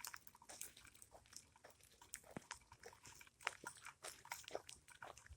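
Faint, irregular ticking and crackling right at a hand-held phone's microphone in the rain, with no steady sound under it.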